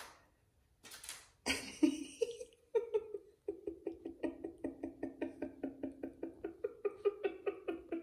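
African grey parrot knocking at a door in a fast, even run of short knocks, about five a second, starting about three and a half seconds in. A short pitched call comes about two seconds in.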